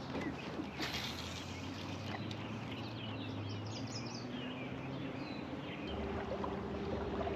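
Steady outdoor background noise with birds chirping briefly in the middle, and a steady low hum that starts near the end.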